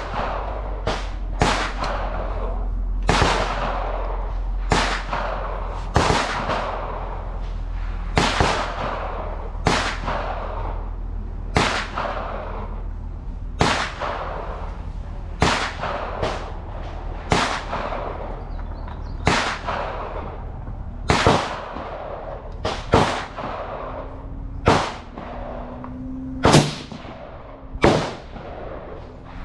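Rifle gunfire, about two dozen shots at irregular intervals and often in close pairs, each with a ringing echo. A steady low rumble lies underneath.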